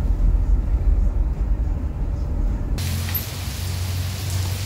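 Low road rumble inside a moving car's cabin. About three seconds in it cuts suddenly to an even hiss of heavy rain.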